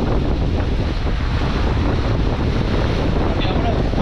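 Wind buffeting the microphone over the steady rush of water from a boat under way at sea.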